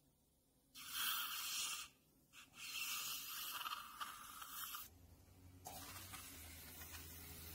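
A surgical hand instrument scraping against bone at an open sinus-lift flap in the upper jaw: two bursts of harsh, scratchy noise, about one and then two seconds long, followed by a fainter steady hiss with a low hum.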